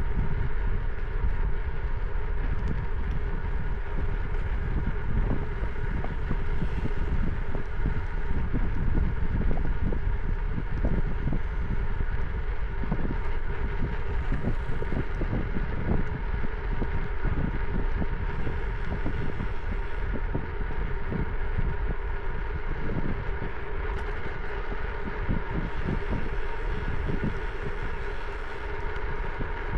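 Wind buffeting the microphone while cycling, a dense fluttering rumble, with a steady hum of several held tones underneath.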